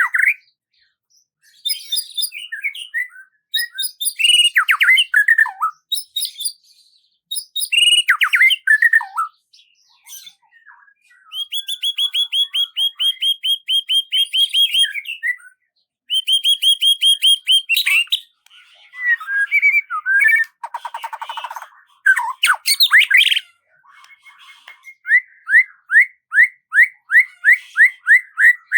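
A songbird singing a continuous, varied song of quick chirps and whistled glides. Long, fast trills come in the middle, then a harsh rasping note, and near the end a run of evenly repeated notes at about five a second.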